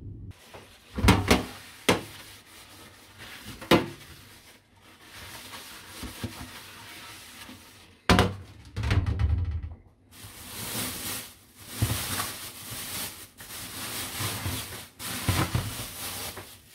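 Kitchen handling sounds: a few sharp knocks and thuds, as of cupboard doors and a baking tray being got out. These are followed by several seconds of rustling and scraping.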